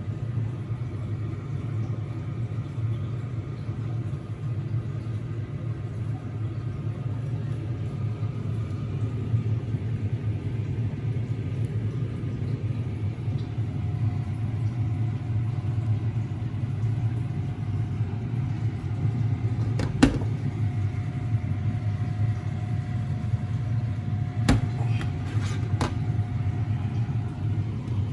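Steady low machine hum, with one sharp click about two-thirds of the way through and a few more clicks near the end.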